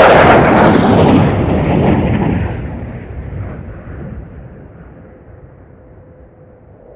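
Jet noise from a low-flying F-35B fighter's engine as it passes, loud at first and then fading away over the next few seconds.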